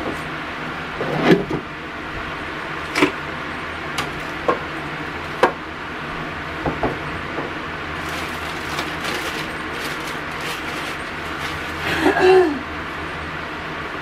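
Containers being handled and taken out of a refrigerator door's shelves: scattered short knocks and clicks of plastic and glass over a steady background hum, with a louder scraping squeak near the end.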